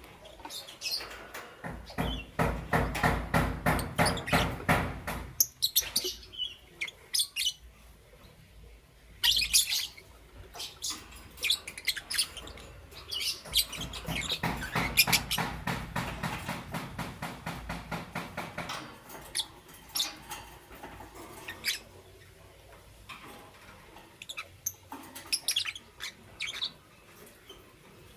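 Lovebirds chirping, with two long runs of rapid, dense chattering, one about two seconds in and another in the middle, between sparser sharp chirps.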